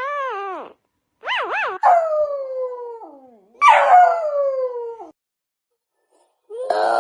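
A dog howling: a wavering, warbling howl, then two long howls that each slide down in pitch, broken by short gaps of dead silence. A different, noisier sound starts near the end.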